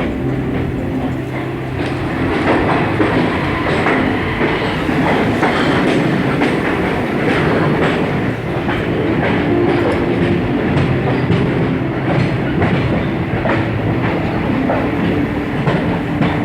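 Train running along the track, heard from on board, with steady rumbling and wheels clicking over the rail joints.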